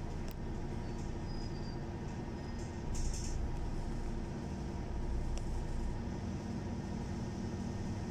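City bus engine running at low speed in slow traffic, heard from inside near the driver's cab. A short hiss comes about three seconds in, and there are a couple of faint clicks.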